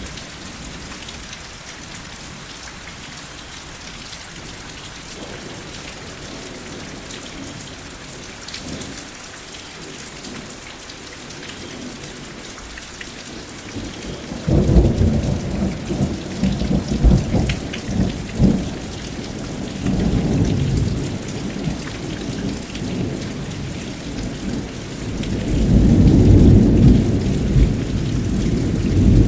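Steady rain falling, with rolling thunder that breaks in suddenly about halfway through and rumbles on in low swells, loudest near the end.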